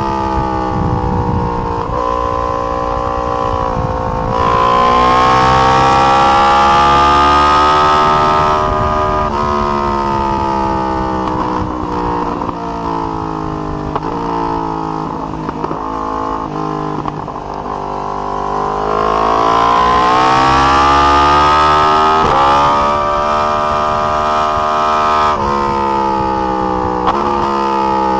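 A 2020 Yamaha R1's crossplane inline-four engine at high revs on track. It pulls hard twice, its pitch climbing and breaking at each gear change, and between the pulls it drops in a series of short steps as the bike slows for corners.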